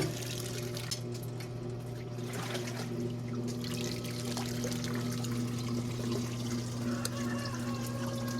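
Water running and splashing in a wringer washing machine's tub, over a steady low hum, with a sharp click at the very start.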